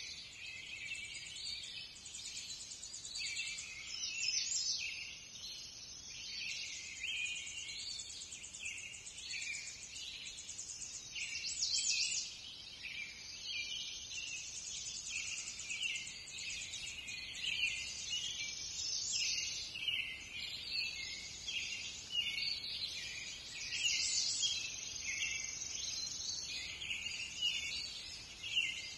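Many songbirds singing at once: a dense, unbroken mix of high chirps and fast trills.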